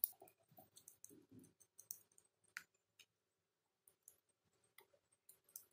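Faint, scattered small clicks and handling noises of small metal fixing screws being picked up and turned in by hand to fix the flexible shaft's clamping plate.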